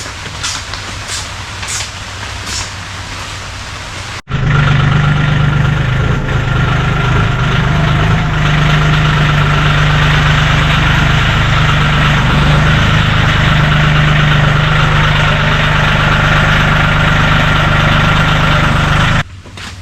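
A vehicle engine idling steadily and loudly, with a constant low hum and a fainter steady whine above it. It starts abruptly about four seconds in and cuts off abruptly just before the end. Before it comes an even hiss with light ticks about three times a second.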